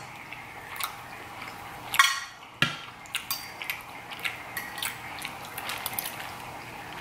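Fork stirring macaroni on a plate, with light scrapes and clicks against the plate and a couple of sharper clinks about two seconds in.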